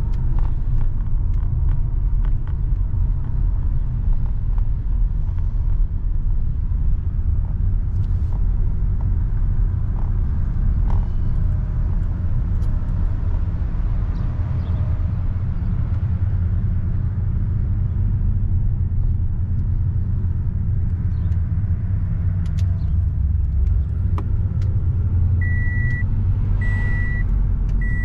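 Car driving with a steady low rumble of road and engine noise. Near the end a high beep starts repeating about once a second.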